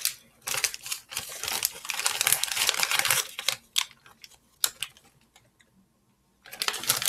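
Plastic candy bag of Sour Patch Kids crinkling and rustling as a piece is taken out, loudest in a long stretch in the first half, then a few sharp clicks and another short rustle near the end.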